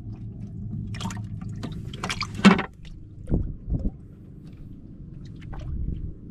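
Water splashing and dripping on a small fishing boat, over a steady low hum. A few sharp knocks come between one and two and a half seconds in, the loudest near two and a half seconds, and two duller low thumps follow about a second later.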